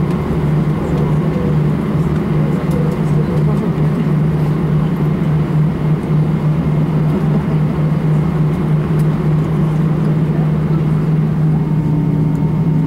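Cabin noise inside an Airbus A320 taxiing after landing: a loud, steady low hum from the idling engines over a low rumble, with no break. Near the end a faint steady tone comes in above it.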